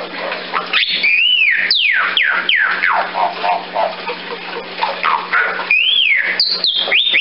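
Bali mynah calling in loud whistles. A whistle rises and falls about a second in, then a run of quick notes slides steeply down in pitch, and a second rising-and-falling whistle with short downward notes comes near the end.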